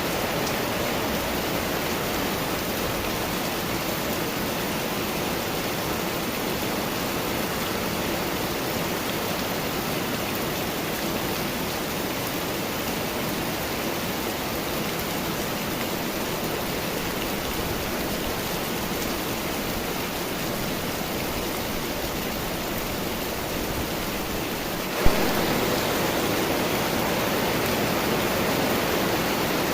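Steady, heavy rain falling in a summer storm, an even hiss. About 25 seconds in there is one sharp click, and after it the rain is a little louder.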